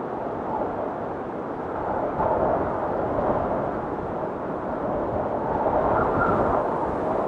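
Storm wind blowing in gusts: a low, rushing noise with a faint howling whistle that wavers in pitch. It swells about two seconds in and again near six seconds.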